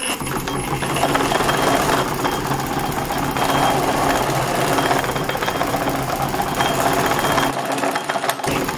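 Rubber wheel of a 3D-printed model-jet main landing gear spinning fast against a motor-driven wooden roller under a 1 kg load: a steady mechanical running and rolling noise with a low hum.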